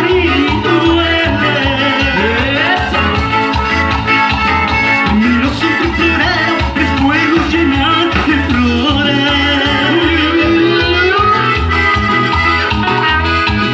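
Latin dance band playing, with a steady pulsing bass beat and melody lines over it.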